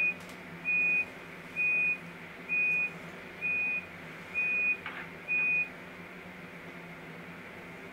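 A Märklin ICE model train's ESU sound decoder sounding door-closing warning beeps through its speakers: seven short, high, evenly spaced beeps a little under a second apart, stopping about five and a half seconds in. There is a steady low hum underneath and a faint click about five seconds in.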